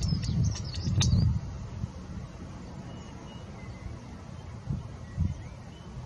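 Gusty wind buffeting the microphone, strongest in the first second and a half and then easing, with small birds chirping briefly near the start and a few faint calls later.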